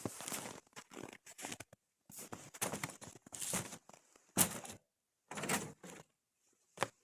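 A string of short rustling and crinkling handling noises, each lasting well under a second, with near-silent gaps between them and a sharper knock about four and a half seconds in.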